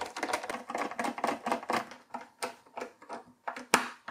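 Precision screwdriver turning a small screw into the bottom cover of a mini PC: a fast run of small clicks for about two seconds, then slower, scattered clicks with one louder click near the end.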